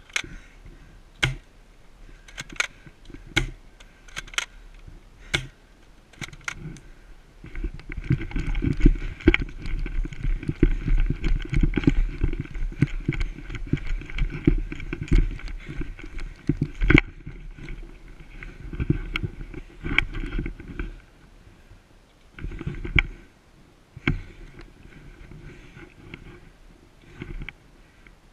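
Handling and movement noise on a body-worn action camera: scattered sharp clicks at first, then about a dozen seconds of dense rustling and scraping as the wearer moves, easing off near the end with a few more clicks.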